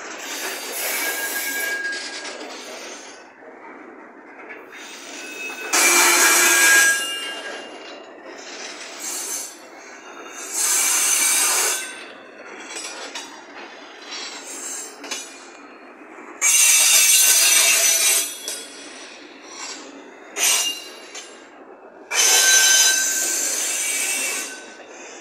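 Freight wagons rolling past, their wheels screeching and grinding against the rails in loud harsh bursts about six times, each lasting about a second, over steady rolling noise in between.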